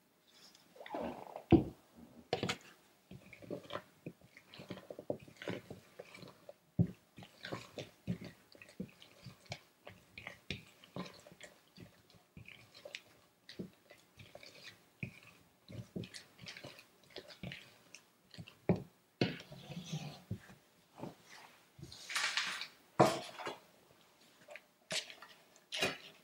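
Spatula folding flour-coated blueberries into thick almond-flour batter in a bowl: irregular soft squishes and scrapes, with a few louder scrapes near the end.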